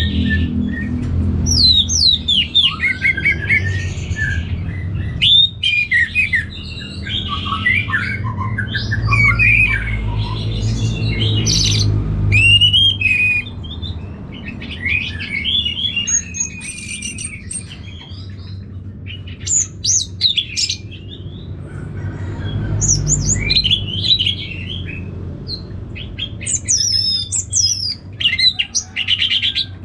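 Orange-headed thrush singing: a varied run of quick whistled phrases and chattering notes that rise and fall, coming in bursts with short pauses, over a low steady background rumble.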